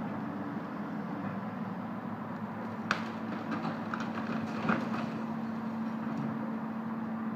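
Tracked excavator's diesel engine running steadily, with sharp cracks and knocks about three seconds in and again near five seconds as it breaks up a house in demolition.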